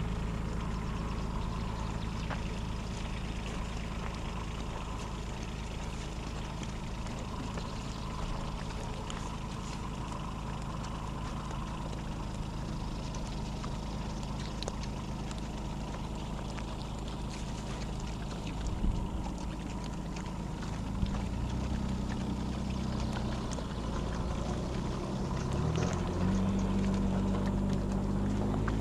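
Engine running steadily at a low pitch, then changing speed in steps during the last third.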